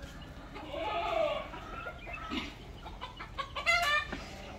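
Chicken calling: a drawn-out call that rises and falls about a second in, and a short, loud squawk near the end.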